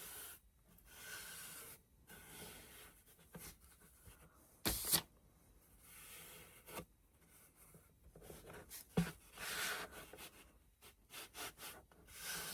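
Faint brushing and rubbing as fabric is glued and smoothed onto a box with a Mod Podge brush, with a sharp tap a little under five seconds in and a lighter click about nine seconds in.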